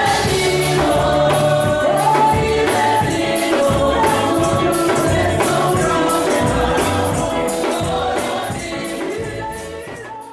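Gospel music: a choir singing over bass and a steady percussion beat, fading out near the end.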